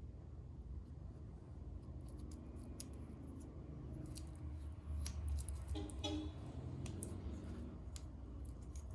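Scattered light clicks and rustles of hands handling a watch and its packaging, with a short squeak about six seconds in, over a steady low hum.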